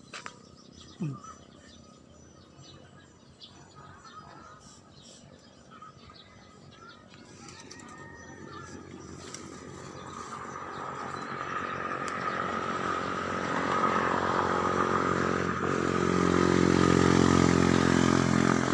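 A motorcycle engine drawing near, its steady running note growing louder from about halfway through and staying loud to the end. A few faint clicks of handling are heard near the start.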